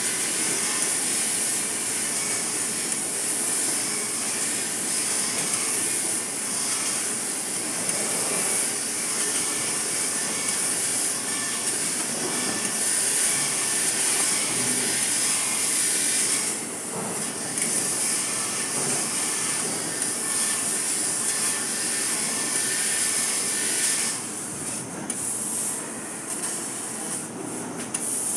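2 kW CNC laser cutter cutting 3 mm mild steel: a steady high hiss from the cutting head. The hiss dips briefly about two-thirds of the way in and eases off again for a few seconds near the end.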